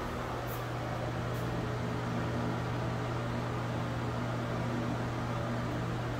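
Steady low hum with an even airy hiss from a running ventilation fan.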